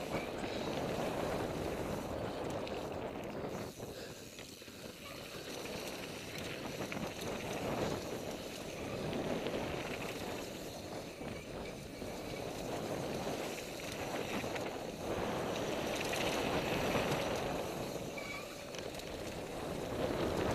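NS Bikes Soda mountain bike descending a packed-dirt flow trail at speed: a continuous rush of tyre and wind noise on the helmet microphone that swells and eases every few seconds through the turns.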